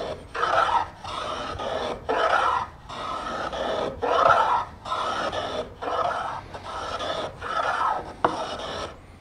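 Lie-Nielsen rabbet block plane taking shavings off the edge of a wooden board, chamfering its corner. About eleven short, even scraping push strokes, a little more than one a second.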